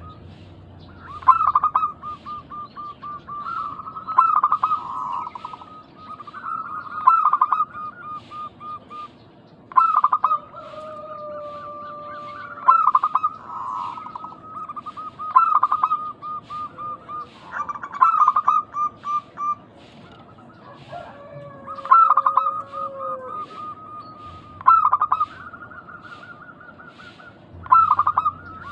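Zebra doves (perkutut) cooing: phrases of quick, staccato coos repeated every couple of seconds, with a few longer, steadier notes in between.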